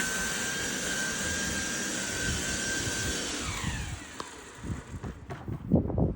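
Benchmark 13-amp electric lawn dethatcher running with a steady high whine, then switched off about three seconds in, its pitch falling as the motor and tines spin down. Scattered knocks and rustles follow near the end.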